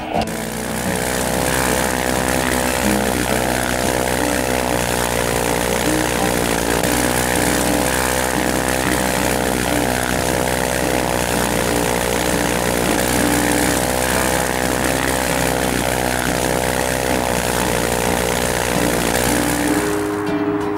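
Engine and propeller of a Zodiac 601XL ultralight running at high power through the takeoff run and climb-out. The engine is a ULPower UL260i four-cylinder. It is a loud, steady drone whose pitch dips slightly a couple of times and which stops about a second before the end.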